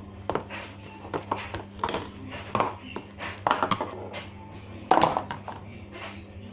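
Slime being squeezed and poked, giving irregular sharp clicks and wet pops, the loudest about three and a half and five seconds in, with music playing underneath.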